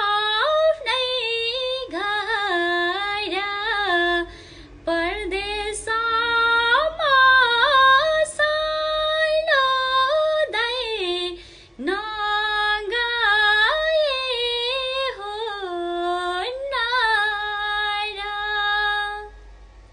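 A woman singing a Nepali song solo with no instruments heard, holding long notes with ornamented turns in pitch. The singing pauses briefly twice and trails off near the end.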